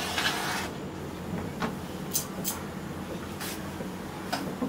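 Domestic gas stove burner being lit under an aluminium pot: a short hiss as the gas catches, then a low steady burner hiss with a few light clicks and knocks from the knob and pot.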